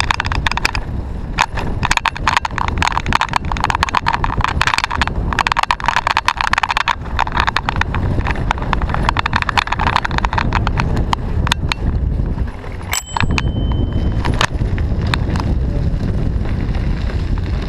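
Riding a city bicycle over the street: dense, irregular rattling and clicking from the bike and its mounted camera, over a steady low rumble of wind on the microphone. A brief high ringing tone comes about 13 seconds in.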